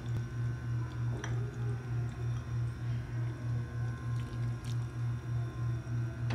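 Background music with a steady low pulsing beat, about three pulses a second, and a couple of faint clicks.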